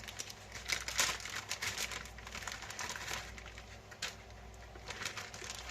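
Plastic bacon packaging crinkling and rustling as it is handled and opened, in irregular crackles.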